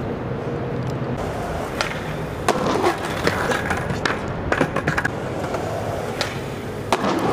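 Skateboard on concrete: the board clacking and its wheels knocking and rolling in a run of sharp hits from about two and a half seconds in, with a final cluster of impacts near the end as the skater comes off the ledge.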